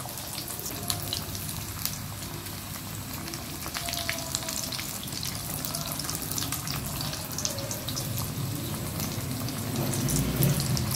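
Hot oil sizzling and crackling steadily as puff pastries deep-fry in a kadai, with many small pops through the hiss. It gets a little louder near the end, as a slotted spoon turns the pastries.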